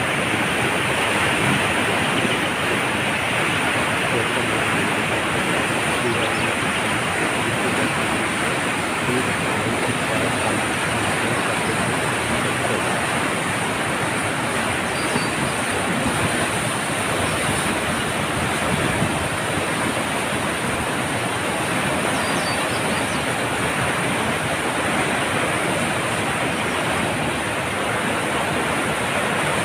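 Floodwater of the swollen Cauvery River rushing past in a steady, unbroken noise.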